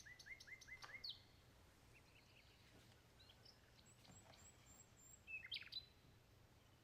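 Faint birdsong: a quick run of about six short chirps in the first second, then scattered thin chirps and a brief burst of calls a little past halfway.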